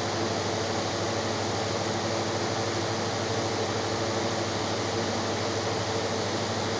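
Steady mechanical hum with a constant hiss, like a running fan, unchanging throughout.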